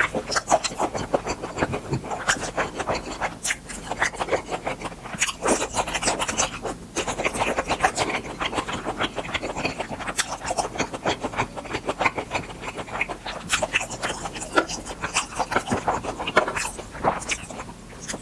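Close-miked chewing of grilled beef tripe: a steady run of wet, rapid mouth clicks and smacks, as in a mukbang.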